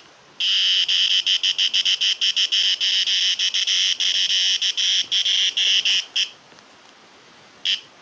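Cicada giving its distress buzz while seized by a praying mantis: a loud, high buzz chopped by many brief breaks for about six seconds, then one short buzz near the end.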